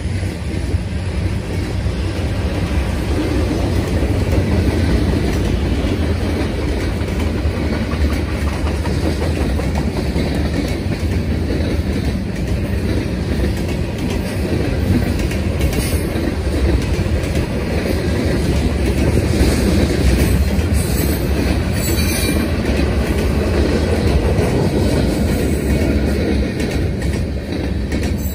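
Freight train cars rolling past at speed: a steady heavy rumble of steel wheels on rail with clickety-clack over the rail joints. A couple of brief high wheel squeals cut in about halfway through and again later.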